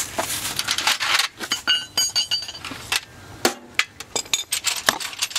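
Metal hand tools and parts clinking and knocking during engine-bay work, irregular sharp clicks throughout, with a brief metallic ring about two seconds in.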